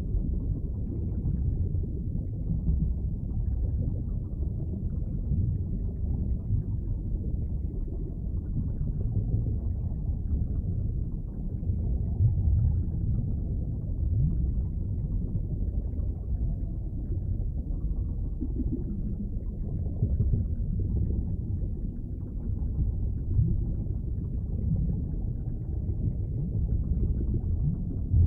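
Underwater ambience: a deep, muffled rumbling wash of water that swells slightly louder and softer without ever stopping.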